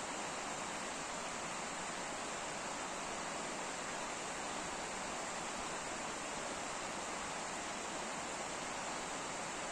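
Water rushing steadily at a small irrigation dam, an even unbroken hiss with no separate events.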